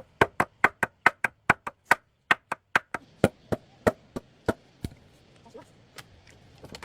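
A rapid series of sharp chopping blows, about five a second, then slowing to a few slower strikes and dying away near the end.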